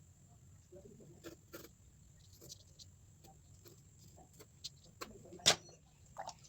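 Scattered faint taps and clicks over a low steady hum, with one sharp, louder click about five and a half seconds in.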